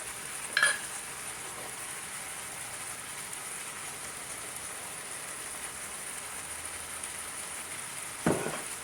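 Chicken sizzling steadily as it sears in a multi-cooker on the sauté setting. A short click comes about half a second in, and a knock comes near the end.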